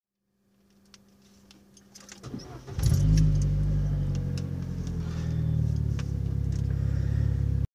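Car engine being started from inside the car. A faint hum and a few light clicks come first; then, about two and a half seconds in, the engine turns over, catches and settles into a loud, steady idle. The sound is cut off abruptly near the end.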